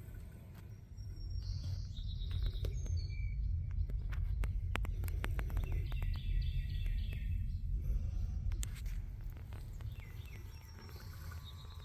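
Birds chirping in short phrases, over a loud, uneven low rumble that swells through the middle of the sound, with scattered sharp clicks.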